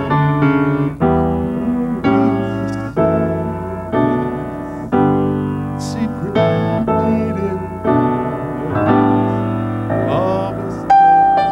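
Piano music: slow chords, struck about once a second and left to ring.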